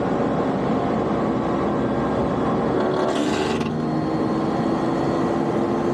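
Tesla Model 3 Highland heat pump running: a loud, steady noise with several steady tones in it. A hiss flares up for under a second about halfway through, and after it one tone slowly rises in pitch.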